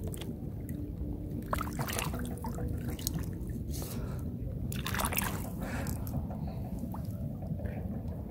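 Shallow lake water sloshing and splashing, with several short splashes, as a hand gropes in the sandy bottom and scoops up freshwater clams; water trickles and drips off the hand.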